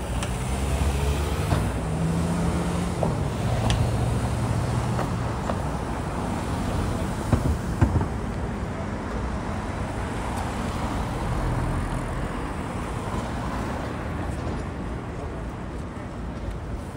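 City street traffic: vehicle engines idling and passing over a steady hum of traffic. A couple of sharp knocks sound about seven to eight seconds in.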